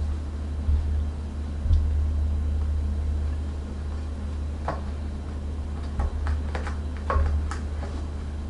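A steady low hum, with a few short clicks and taps, most of them between about four and a half and seven and a half seconds in.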